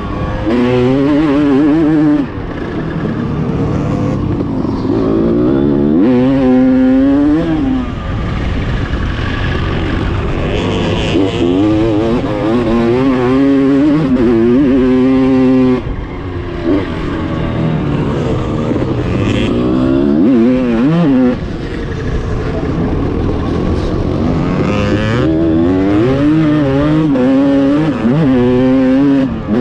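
Honda CR250's single-cylinder two-stroke engine heard on board at race pace, revving hard and repeatedly climbing and falling in pitch through the gears. The throttle shuts off abruptly about 2, 16 and 21 seconds in before the engine picks up again.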